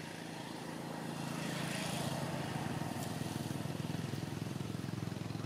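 A motor vehicle's engine running off-screen, with a low, steady hum that grows louder over the first couple of seconds as it comes closer, then holds.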